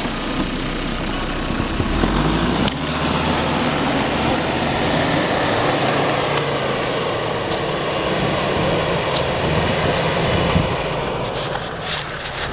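Land Rover Defender engine running under load as the vehicle drives through deep snow, tyres churning the snow. The engine gets louder about two seconds in and holds steady.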